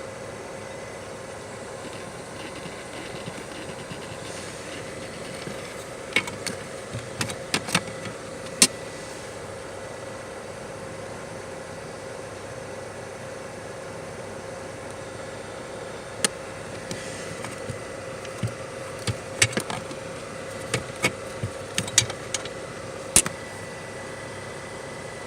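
Faulty air-mix damper servo motor from a 10-series Toyota Alphard's climate control, running out of control: a steady hum broken by clusters of sharp clicks and knocks, one group a quarter of the way in and more through the second half. The noise is the sign of the servo motor failing.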